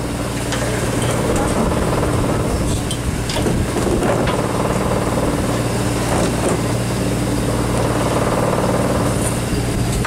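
A boat's engine running with a steady low hum, with faint voices of people nearby.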